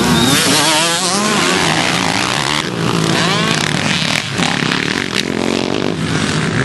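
Motocross dirt bike engines revving hard, their pitch rising and falling quickly as riders work the throttle through the track. The sound changes abruptly about two and a half seconds in.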